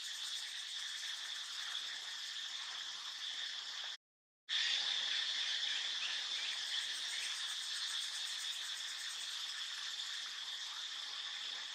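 Steady, shrill chorus of insects, even and unbroken apart from about half a second of silence about four seconds in.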